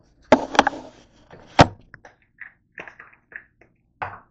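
Knocks and clunks of things being handled and set down on a kitchen counter: a quick cluster of knocks, then a single sharper, louder knock about a second and a half in, followed by lighter taps and rustles.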